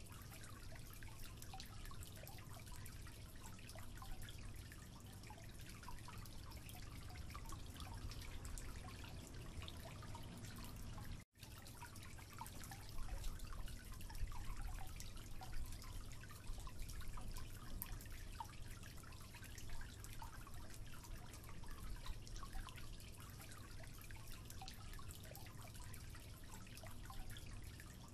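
Water dripping from a leaking tap into a concrete sink: many small, irregular drips over a low steady hum. The sound cuts out for an instant about eleven seconds in.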